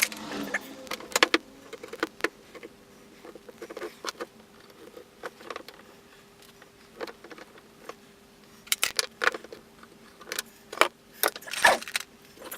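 Irregular light metallic clinks and taps of hand tools working on an old breast drill as it is taken apart, with a quick cluster of clicks near the end.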